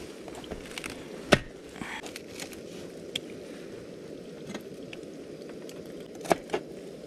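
A knife cutting and pulling apart a head of cabbage on a wooden cutting board: light crisp clicks and leaf snaps, with one sharp knock about a second in and two quick knocks near the end. A steady low rushing noise runs underneath.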